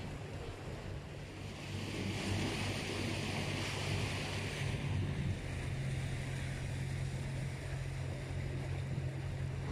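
Semi-open canal cruise boat under way: its motor gives a steady low hum with water rushing along the hull. A rushing hiss swells between about two and five seconds in, and the hum shifts slightly about halfway through.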